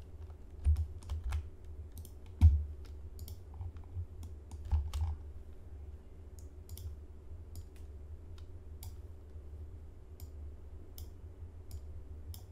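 Irregular computer keyboard key presses and mouse clicks, a few of them louder with a low thump, over a steady low hum.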